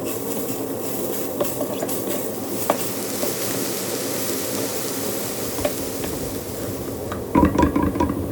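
Food sizzling in a pan: a steady hiss with scattered light clicks, and a brief louder clatter near the end.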